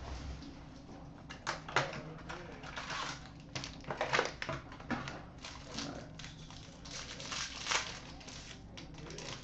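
Foil trading-card pack wrapper and its cardboard hobby box being opened by hand: short, irregular rustles, crinkles and light clicks as the box is torn open and the pack is unwrapped.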